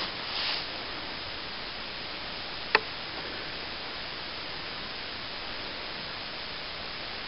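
Steady hiss, with a short rustle of cereal stalks being brushed by hand just after the start and one sharp click a little under three seconds in.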